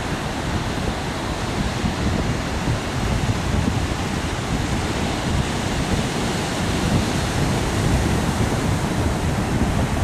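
Pacific Ocean surf washing onto the beach in a steady wash, mixed with strong wind buffeting the microphone in a low, fluttering rumble.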